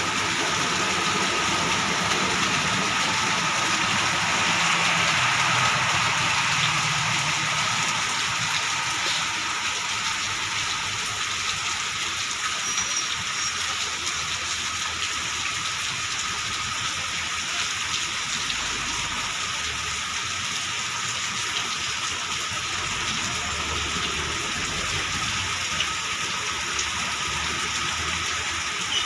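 Heavy rain falling steadily on pavement and puddles, a constant hiss. A low vehicle engine rumble sits under it in the first several seconds.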